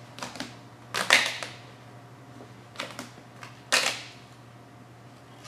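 Vinyl wrap film crackling and scraping in three short bursts as it is pulled taut over the hood's curve and worked with a felt-edged squeegee card.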